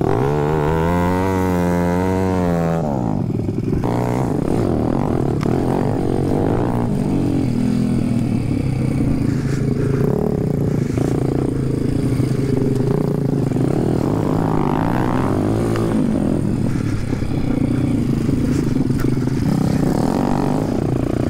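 170cc pit bike's single-cylinder four-stroke engine being ridden off-road, revved up and down several times in quick succession in the first few seconds, then running under constantly changing throttle, its pitch rising and falling.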